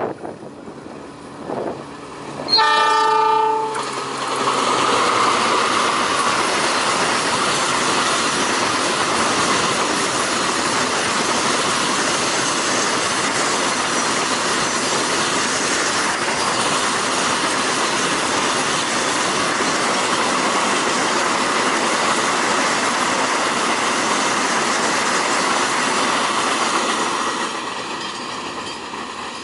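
A CC206 diesel locomotive sounds one horn blast of about a second, then its train of freight wagons rolls past in a steady rush of wheel noise on the rails, fading near the end as the train moves away.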